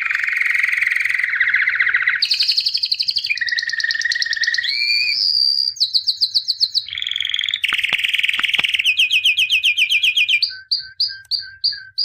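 A songbird singing a string of fast trills, each run of repeated notes held for a second or two before switching to a new pitch, giving way near the end to slower separate chirps.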